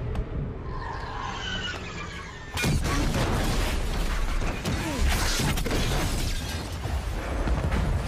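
Film sound effects of a blast: a sudden loud crash about two and a half seconds in, followed by continuous shattering and crashing of glass and debris over a low rumble.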